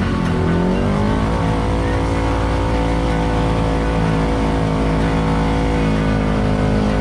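Kawasaki KRX 1000 side-by-side's parallel-twin engine running under throttle. Engine speed dips briefly, climbs over about a second, then holds steady.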